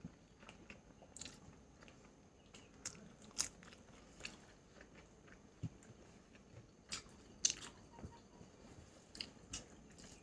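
A person chewing and biting food close to the microphone, with faint, irregular crisp crunches every second or so.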